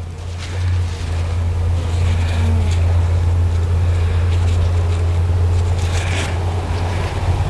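A steady low hum, with brief rustling and handling noises about two seconds and six seconds in.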